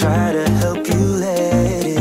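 Background music: a song with a steady bass beat and a sung melody.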